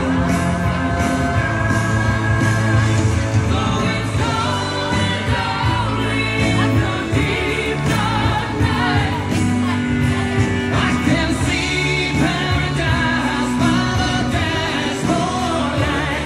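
Rock music with singing: a sung vocal line over steady band accompaniment with a strong bass.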